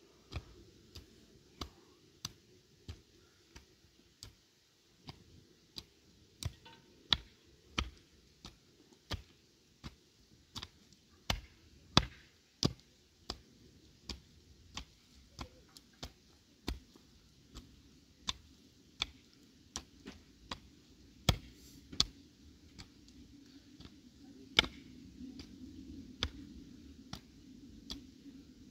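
A steady series of sharp taps or clicks, about three every two seconds and uneven in loudness, over a faint low background noise that grows a little louder near the end.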